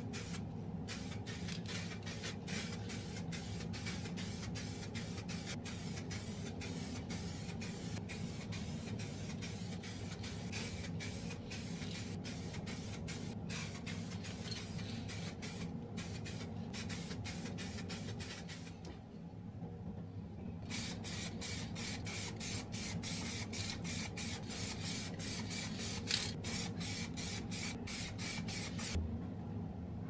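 Aerosol can of car paint spraying in many short hisses in quick succession, with a pause of about two seconds past the middle, over a steady low hum.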